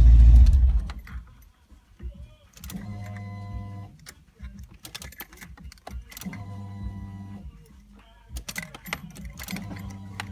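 A Fox-body Mustang's V8 shuts off under a second in. Then come three short electric motor hums of about a second each, several seconds apart, with small clicks and key rattles between them.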